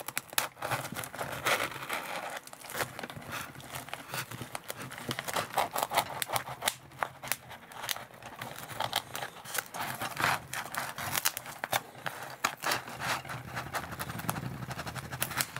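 Table knife sawing through crispy fried chicken and the thin black plastic takeout bowl beneath it: irregular crunching and crackling, with the blade scraping and snapping through the plastic rim.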